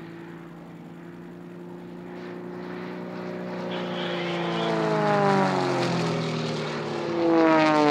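Engine and propeller of a large-scale radio-controlled Extra 300 model aerobatic plane flying a display. The engine note is steady at first, then grows louder and falls in pitch as the plane passes, with a second falling sweep near the end.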